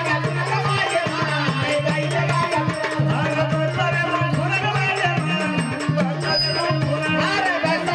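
Live Marathi devotional folk song by a waghe troupe: voices singing over drum strokes and rattling, jingling percussion, with low held notes that shift in step with the tune.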